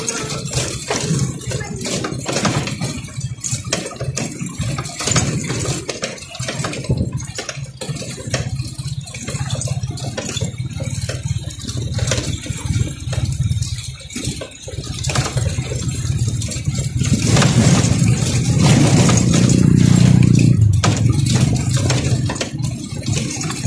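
Motorcycle engine running while riding over a rocky dirt road, with frequent rattles and knocks from the bike jolting over stones. The engine grows louder for a few seconds about two-thirds of the way through.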